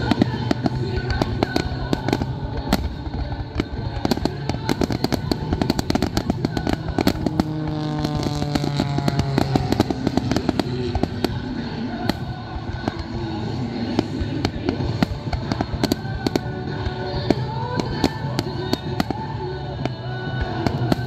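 Fireworks going off in a dense run of rapid pops and bangs, with music playing underneath.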